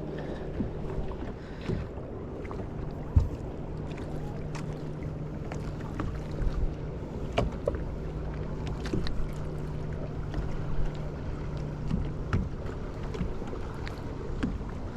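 A boat motor humming steadily at one pitch, fading out near the end, with scattered light clicks and knocks over it and one sharper knock a few seconds in.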